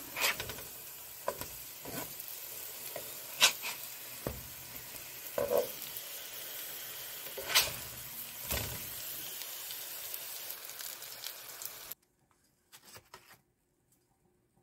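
Sweet potato slices sizzling in a frying pan as they brown, with a few sharp knocks of a spatula against the pan. The sizzle stops suddenly near the end.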